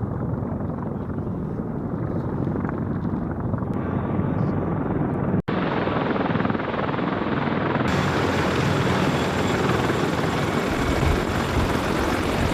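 CH-47 Chinook tandem-rotor helicopter running: steady rotor beat and turbine noise. About five seconds in there is a brief cut, and a second recording of the same kind follows.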